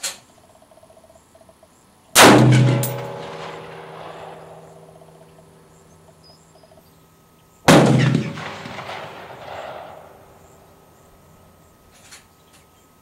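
Two rifle shots from an AR-15 with a DSArms ZM4 5.56 upper, about five and a half seconds apart, each report echoing away over a couple of seconds. A short sharp click comes right at the start.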